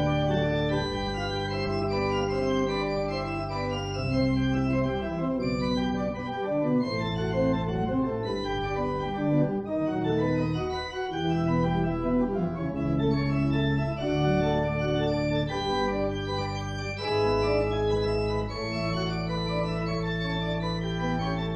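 Organ playing slow, sustained chords, the harmony changing every second or two.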